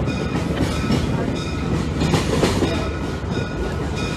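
Budd RDC diesel railcar running along the track, heard from aboard as a steady rumble that swells slightly about two seconds in.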